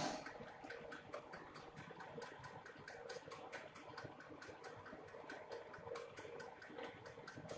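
Bottle conveyor running, plastic bottles on the chain giving a faint, quick, uneven ticking, several ticks a second over a low running hum.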